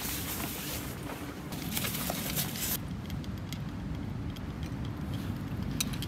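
Steady low rumble of wind on the microphone, with a louder hissing gust between about one and a half and three seconds in, and a few light clicks near the end.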